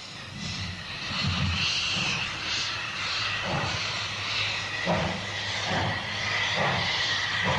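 Steam locomotive working, its exhaust beats coming slowly at about one a second under a steady hiss of steam.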